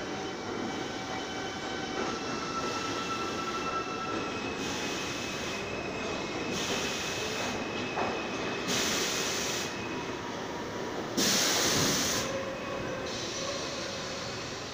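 R42 subway train pulling into a station and slowing to a stop, with a steady rumble, a thin high squeal from the wheels and brakes, and bursts of hiss every second or two, the loudest about three-quarters of the way through.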